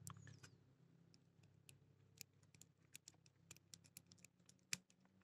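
Faint, scattered clicks and ticks of a lock pick working the wafers inside a wafer padlock's keyway, with one sharper click near the end.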